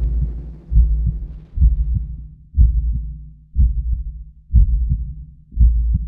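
Deep, muffled booms repeating about once a second in a steady tread: high-explosive bombs landing overhead, heard from below like giant footsteps.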